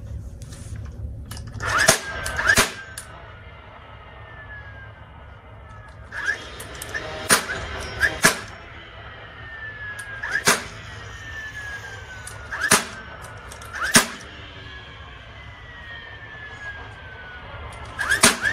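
DeWalt 20V cordless stapler firing staples through upholstery fabric into a seat base: about ten sharp cracks spaced unevenly, some in quick pairs, several followed by a falling whine.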